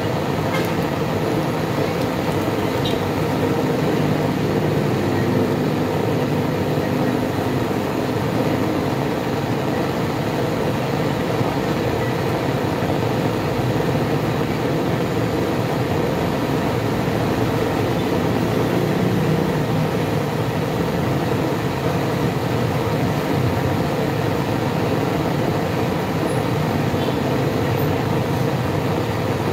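A steady machine roar with a faint hum, unchanging in level and pitch.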